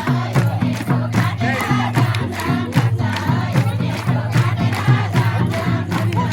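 Traditional Nepali Teej song: group singing over music with a steady, quick beat, with crowd noise beneath.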